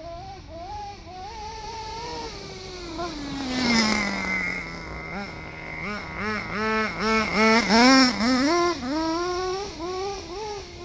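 Radio-controlled car running, its motor whine rising and falling in pitch with the throttle, with a long drop in pitch about four seconds in and a run of quick throttle blips a couple of seconds later.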